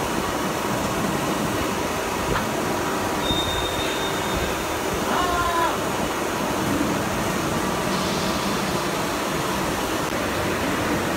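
Steady machine noise of a CNC press brake as its multi-axis backgauge drives its stops into new positions, with a faint click about two seconds in and a couple of short high motor whines a few seconds in.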